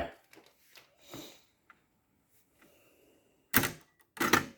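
Handling noise: a few faint soft knocks, then two sharp clacks a little under a second apart near the end.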